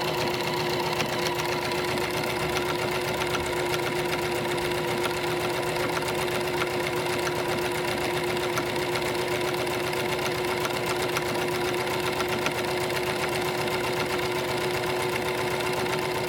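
Electric sewing machine running steadily at speed, a constant motor hum with rapid, even needle strokes, as it top stitches a fabric strip in one continuous run.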